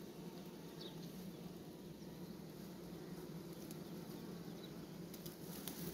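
Steady low hum of honeybees clustered at a hive entrance, with a few faint clicks near the end.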